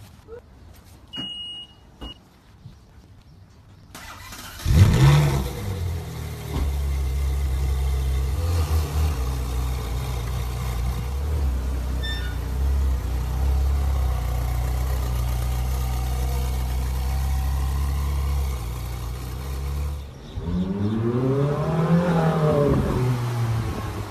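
A short high beep, then the Ferrari 458 Speciale Aperta's V8 is started about five seconds in, catching with a loud flare of revs and settling into a steady idle. Near the end the engine revs up and back down as the car pulls away.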